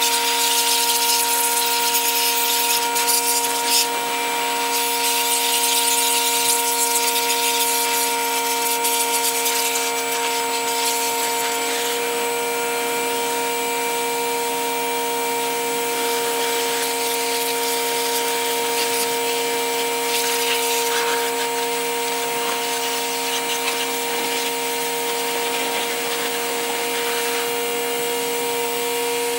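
Pressure washer running steadily: a constant pump whine under the hiss of the water jet spraying over a dirt bike's frame and engine.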